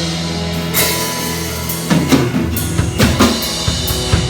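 Church praise band playing an instrumental passage between sung lines: a held chord over bass, a cymbal crash about a second in, then a steady drum kit beat from about two seconds in.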